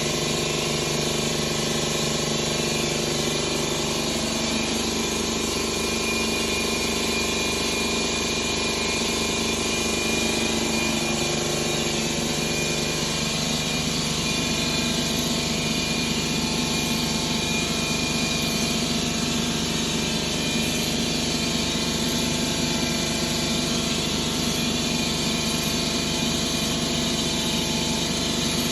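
Ford Escape 2.5-litre four-cylinder engine running steadily, with a change in its sound about a dozen seconds in. The engine is misfiring on cylinders 1 and 2.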